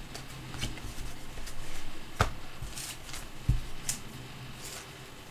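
Glossy trading cards handled by hand: cards sliding against one another as they are flipped through, with soft swishes and a few light clicks and taps, the sharpest about two seconds in.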